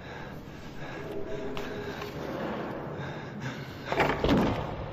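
A small metal hatch in a prison door shut with a loud bang about four seconds in, after a few seconds of faint, steady background.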